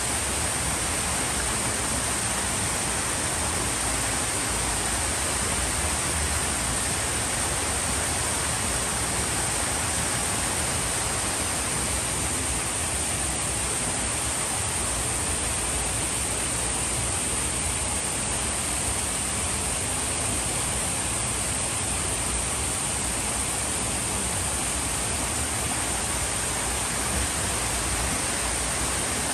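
Steady rush of water from a small waterfall cascading down over rocks.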